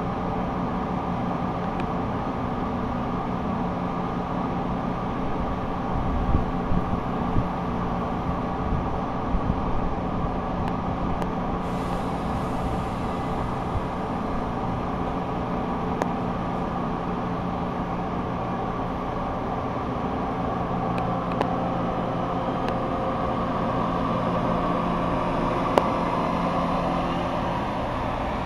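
Metra bilevel commuter train standing at the platform with its equipment running: a steady drone with a low hum and a few light knocks, growing slightly louder near the end.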